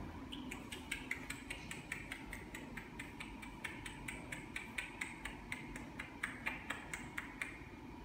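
Rapid, fairly even series of sharp metallic taps, about four a second, each with a short high ring, stopping near the end.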